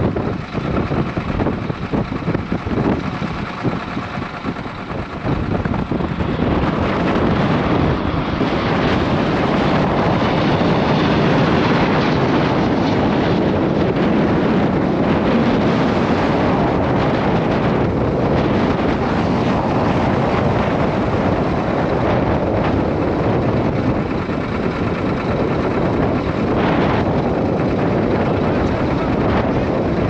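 Steady roar of strong wind on the microphone mixed with the engines of a large firefighting air tanker flying low over the fire, growing louder about six seconds in.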